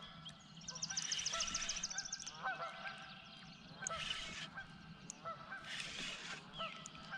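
Geese honking repeatedly, short calls about once a second, with a songbird's rapid high trill about a second in.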